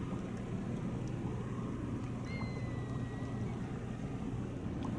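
Steady low hum of a large car ferry's engines carrying across the harbour water. A thin, slightly falling whistle sounds for about a second, a little past two seconds in.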